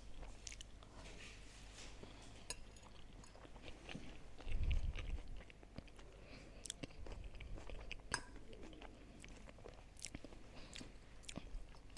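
Quiet chewing of a mouthful of food, close to a clip-on microphone, with scattered light clicks of a fork against a china plate. A dull low thump, the loudest sound, comes about four and a half seconds in.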